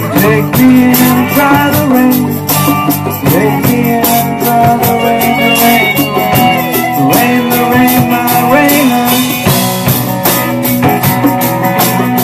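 A live rock band playing, with electric guitars and congas over a drum kit's steady beat.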